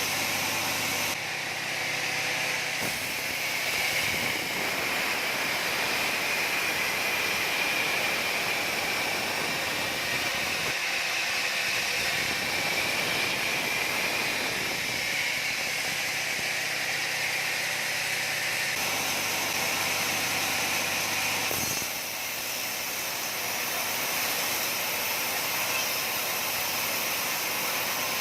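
Sawmill saw running: a steady loud machine noise with hiss and a high whine that is strongest through the first half.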